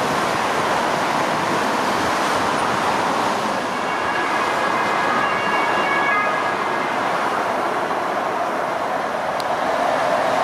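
Steady rushing rolling noise of a train, with faint high-pitched squealing tones for a few seconds in the middle.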